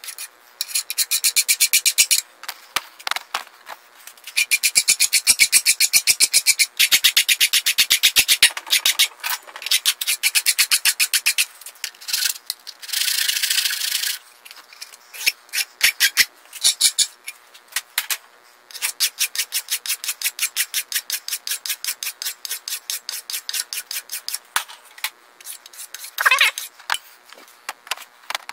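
Hand file rasping across the sawn edge of a 1/8-inch aluminium plate held in a vise, rounding the end over. It goes in runs of quick back-and-forth strokes lasting a few seconds each, with short pauses between them.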